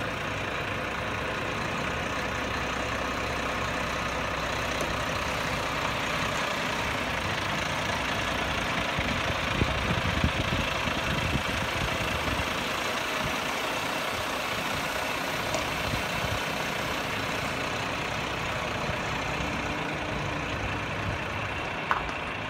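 Heavy truck's diesel engine idling steadily, with a few brief knocks about ten seconds in and near the end.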